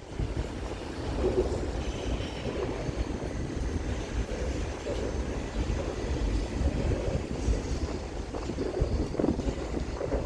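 Kansas City Southern train rolling past, a steady rumble of cars on the rails, with wind buffeting the microphone.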